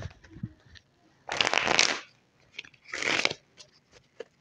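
Tarot cards shuffled by hand: two brisk rustling bursts, one just over a second in and a shorter one about three seconds in, with light clicks of cards being handled between them.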